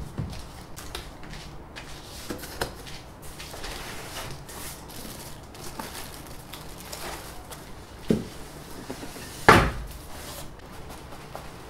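A large cardboard shipping box being handled and tipped over, with scattered rustles and knocks, then a thump about eight seconds in and a louder thump a second and a half later as the heavy box comes down on its side on the table.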